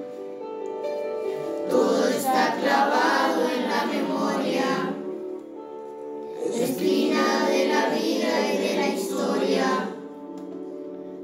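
Background music: a song with singing over instrumental backing, dropping to held instrumental notes for a moment about five seconds in and again near the end.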